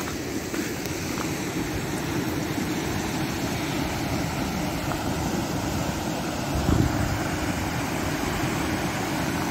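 Muddy floodwater rushing steadily over a desert wash, an even rushing noise with a slightly louder swell about seven seconds in.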